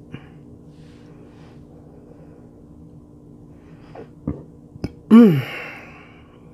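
A woman sneezing once about five seconds in: a sharp burst of breath with a voiced tail that falls in pitch, after a few small clicks and catches of breath.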